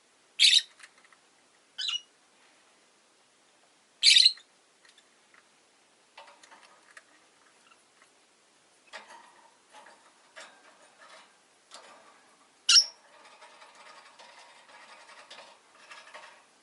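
Rosy-faced lovebirds calling: four short, shrill chirps stand out, the loudest near the start and one near the end, with softer chatter and small clicks in between in the second half.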